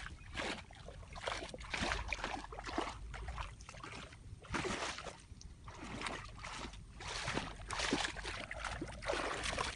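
Shallow stream water splashing and swishing in irregular surges as legs wade through it.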